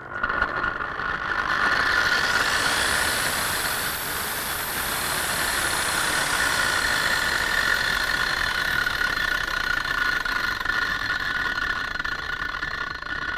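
A 9-inch (230 mm), 2600 W corded angle grinder switched on and spinning up gradually on its soft start. Its whine climbs in pitch over the first few seconds, then it runs steadily with no load.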